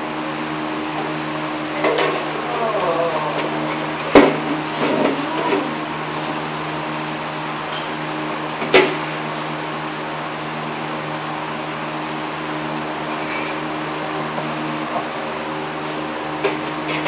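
A few sharp knocks and clatters as a motorcycle fender is handled and held up against the bike, the loudest about four and nine seconds in, over a steady machine hum.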